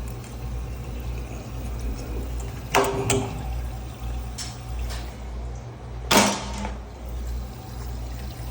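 Several short knocks and scrapes of hands working on a leaking electric water heater's thermostat and heating-element area, the loudest about six seconds in, over a steady low hum.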